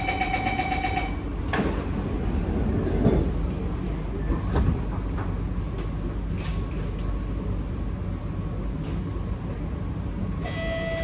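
Door-closing warning chime on an SMRT C151A metro train, beeping rapidly for about a second, then the sliding doors knock shut about a second and a half in. The train's low rumble follows, with a few clicks, and an announcement chime starts near the end.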